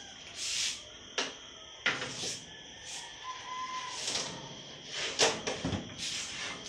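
Metal baking pans scraping and clanking as they are handled in and out of a stainless-steel deck oven: several sliding scrapes and a few sharp knocks, the loudest about a second in, two seconds in and around five seconds in. Crickets chirp steadily behind.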